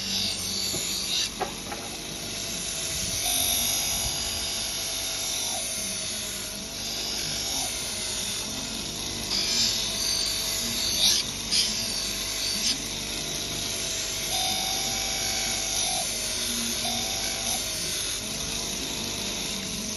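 6-inch bench grinder running with a hoof knife held to its polishing wheel, the motor's hum dipping and recovering in pitch as the blade is pressed on, with hissing where the steel rubs the wheel. This is the polishing stage that takes off the burr left on the back of the blade by sanding.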